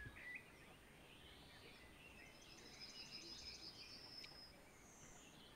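Near silence with faint birds chirping, including a short run of high rapid notes about three to four seconds in.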